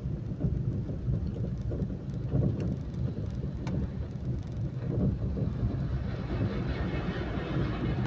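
Steady low rumble of road and engine noise inside a moving car's cabin. From about six seconds in, a rising hiss joins it as a coach draws alongside to overtake.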